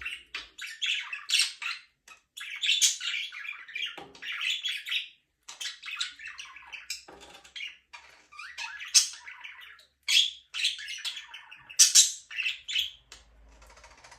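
Budgerigars chirping and chattering in bursts of quick high chirps and squawks, with short pauses between bursts.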